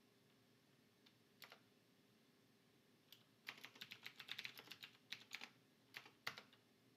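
Faint computer keyboard typing: a single keystroke, then a quick run of keystrokes and a few more near the end.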